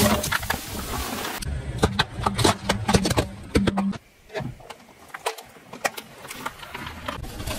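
Car tyre crushing things: a Coca-Cola can bursts under it with a hiss of spraying soda, then a run of sharp cracks and pops as small plastic toys are squashed, with the car's engine running low underneath.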